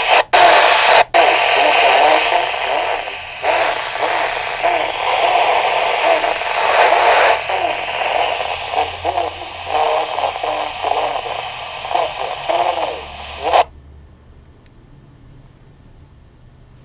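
Yaesu VX-150 handheld VHF transceiver's speaker putting out loud FM receiver static with a faint, garbled voice in it, briefly dropping out twice near the start, then cutting off suddenly near the end, as an FM squelch closes.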